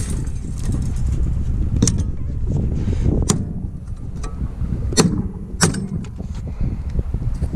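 Steel strapping bands on a roof-truss package being pried with the claw of a hammer and snapping, four sharp snaps spread over several seconds.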